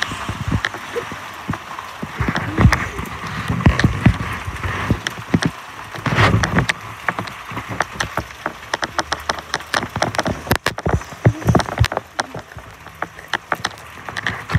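Hail and rain pelting the house and yard: a steady patter dense with irregular sharp clicks of stones striking hard surfaces, with a few louder low thuds in the first half.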